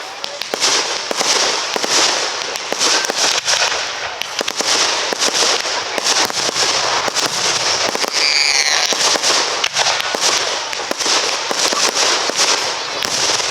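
Aerial fireworks display: a dense, continuous crackling and popping, many small reports every second. A brief wavering high tone comes through about eight seconds in.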